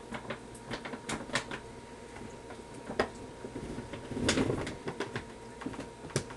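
A cat getting into things off-camera: irregular clicks, knocks and rustling, with a louder rustle about four seconds in.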